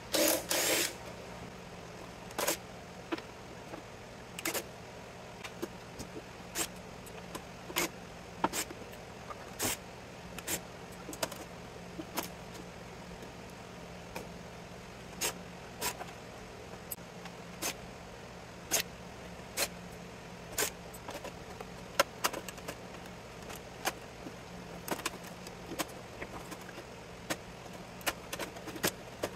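A cordless drill-driver spins briefly at the start, backing a screw out of a variable frequency drive's sheet-metal case. Then comes an uneven run of sharp clicks and clinks as wire connectors are pulled off the drive's circuit boards and parts are handled in the metal chassis, over a faint steady hum.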